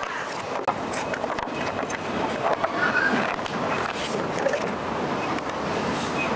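Wind buffeting the microphone in a steady rumbling rush, with a few light crackles and clicks of a clear plastic blister tray being handled.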